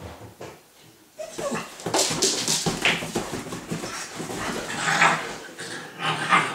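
Two puppies, a Staffordshire bull terrier and a Staffy-cross-husky, play-fighting: short dog vocal sounds mixed with scuffling as they wrestle on a leather sofa. The sounds are irregular and start after a brief lull about a second in.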